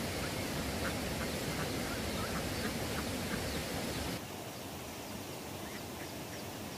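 Short animal calls repeating about three times a second over a steady rushing noise, which drops suddenly about four seconds in.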